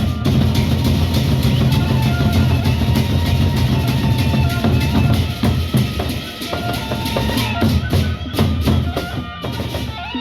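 Sasak gendang beleq ensemble playing: large drums beaten fast in a dense, driving pattern with metal percussion clashing over them. In the last couple of seconds the drumming breaks into short, sharply accented strokes.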